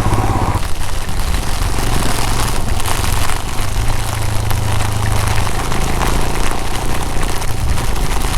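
Royal Enfield Himalayan BS6's 411 cc single-cylinder engine running, a steady low rumble under a dense steady hiss.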